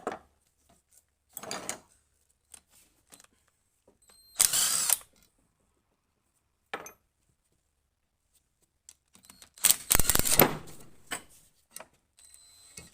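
A handheld power tool running in two short bursts, about four and a half seconds in and about ten seconds in, with lighter clanks of tools and parts in between.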